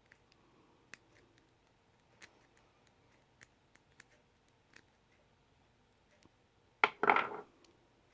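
Small metallic ticks from a pin tumbler padlock and its tools being handled while it is taken apart. About seven seconds in there is a short, louder metallic scrape.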